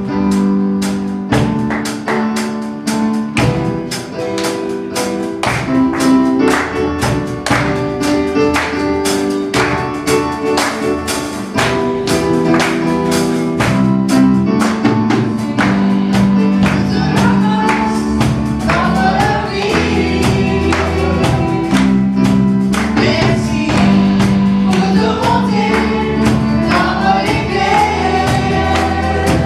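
Live gospel worship band playing a praise song: drum kit keeping a steady beat under electric bass and keyboard, with voices singing into microphones, stronger in the second half.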